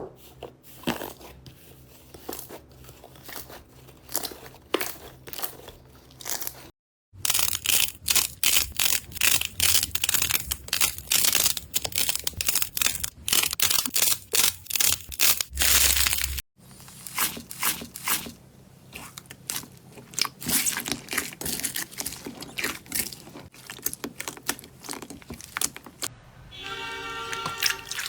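Slime being squeezed, stretched and pressed close to the microphone, with dense crunchy crackling and popping over soft background music. The handling stops abruptly twice.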